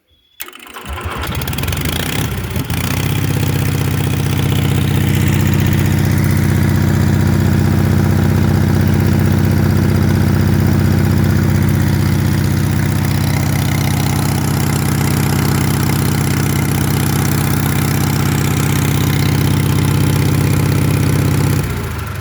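Onan 4 kW generator engine, with no exhaust muffler, starting from cold. It catches within a second, climbs to speed over about two seconds, then runs loud and steady. The freshly rebuilt carburetor is not yet tuned, and the engine is running too fast.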